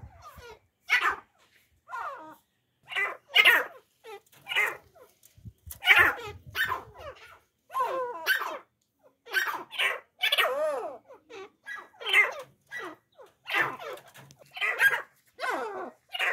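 Grey francolins giving a run of short, harsh, repeated calls, about one to two a second.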